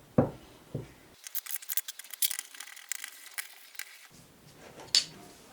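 Small metal parts of an X2 mini mill's head being fitted by hand: two knocks in the first second, a run of quick, light clicks through the middle, and one sharper click near the end.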